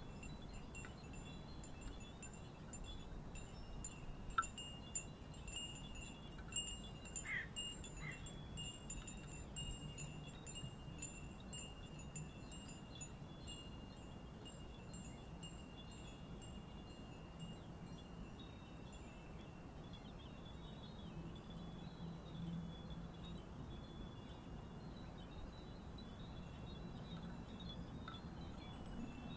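Many small Japanese iron wind bells tinkling softly as a breeze moves their hanging strips. Their high ringing tones overlap into a gentle shimmer, with a few brighter single strikes standing out about four to eight seconds in.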